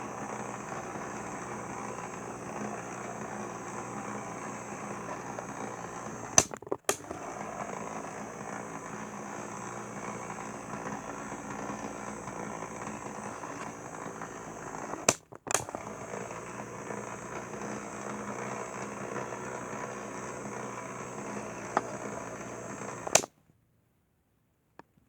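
Small electric motor of a rotating display turntable whirring steadily. It is broken twice by a pair of sharp clicks with a brief dropout, and a final click near the end cuts it off.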